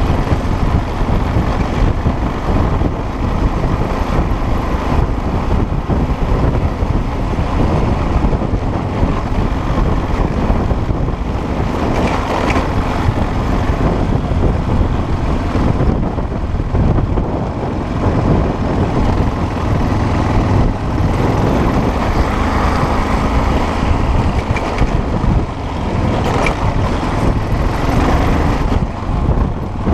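Off-road motorcycle engine running under way, mixed with wind rushing over the microphone.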